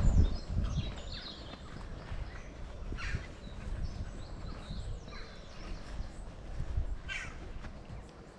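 Birds chirping and calling in short bursts, the clearest about three seconds in and near the end, over a steady low rumble.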